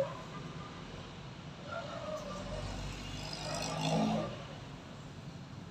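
A motor vehicle passing, its rumble swelling to its loudest about four seconds in and then fading.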